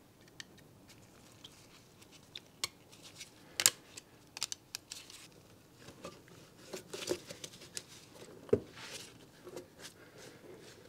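Scattered clicks, taps and rustles of gloved hands working loose the ribbed rubber air intake hose on a Porsche 924 engine, with a few sharper clicks from parts and fittings being handled.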